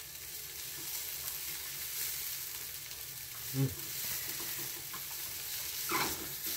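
Food sizzling steadily as it fries in a pan.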